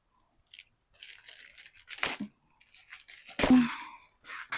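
Gift packaging being handled and torn open: scattered rustling and tearing, with two sharper knocks, the louder one about three and a half seconds in.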